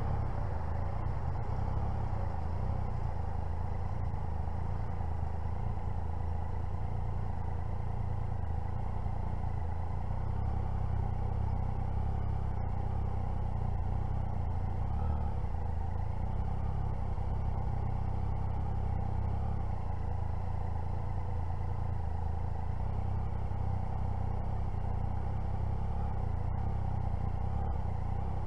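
Motorcycle engine running steadily at low, even speed, heard from a camera mounted on the bike itself, with a steady low rumble and no revving.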